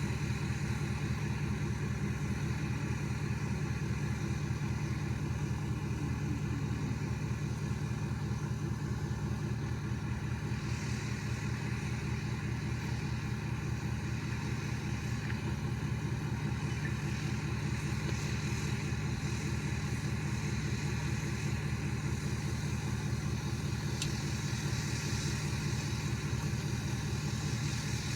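Pickup truck engine idling steadily at low revs, with an even low pulsing.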